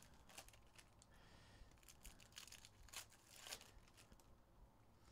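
Faint crinkling and tearing of foil trading-card pack wrappers as Panini Prizm basketball packs are opened, with scattered light ticks from handling.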